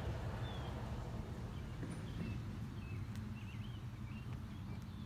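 Outdoor ambience: a steady low rumble with small birds chirping faintly, the chirps coming more often in the second half.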